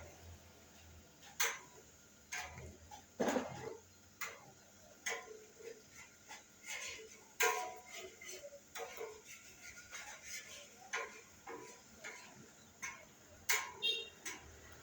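Eating rice: irregular small clicks and taps from a utensil against a dish and from chewing, with a brief clink that rings near the end.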